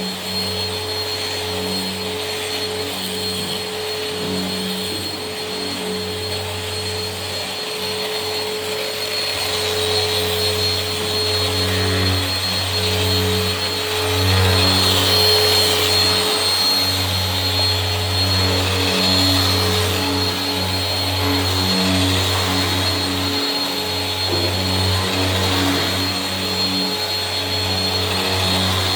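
Rotex random orbital sander running steadily on a Corian solid-surface countertop, a continuous motor whine and hum over the hiss of the pad on the surface. It gets a little louder about ten seconds in.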